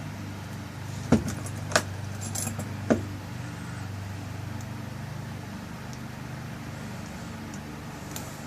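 Small metal lock parts clicking and clinking as a rekeyed lock cylinder's tail piece is screwed back on: a few sharp clicks in the first three seconds, over a steady low hum.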